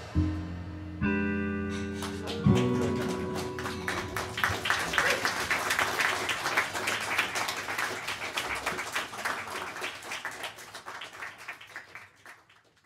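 A jazz band's final chord (trumpet, guitars, piano, upright bass, drums) struck and left ringing, then audience applause that swells and fades out near the end.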